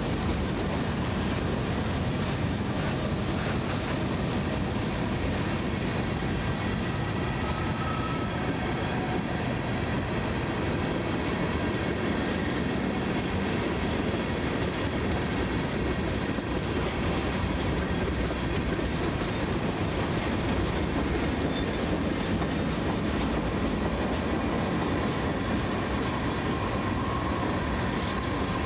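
Freight train cars (autorack, boxcar and tank cars) rolling past close by: a steady rumble of the moving train with the wheels clicking over the rail joints.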